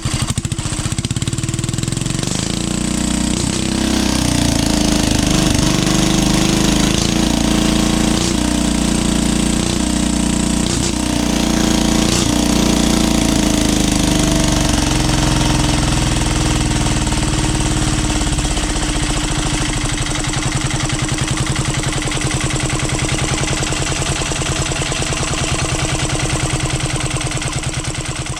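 12 HP air-cooled diesel engine running with a fast, even diesel knock; its speed shifts up and down for a while, then settles to a steady run for the last few seconds.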